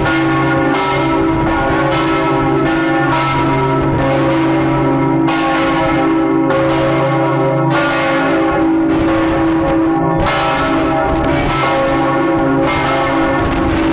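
Several large church bells of the St Mark's Square bell tower ringing together at different pitches, strikes coming roughly once a second in an uneven pattern, each tone ringing on over the next.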